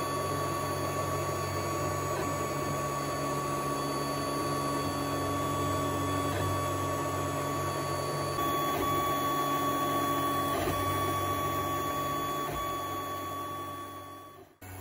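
Creality FDM 3D printer running a print: its stepper motors and cooling fans make a steady mechanical whine and whir, with several held tones. The sound shifts slightly about eight seconds in and stops abruptly near the end.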